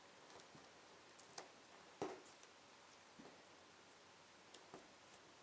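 Near silence with a few faint, short taps and ticks of paper cutouts being handled and pressed onto the tabletop, the clearest about a second and a half and two seconds in.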